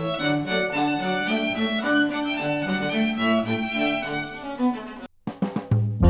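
Instrumental string music led by violin with cello below, played through a headphone and re-recorded by microphones. It stops about five seconds in, and after a brief silence a different piece of music begins.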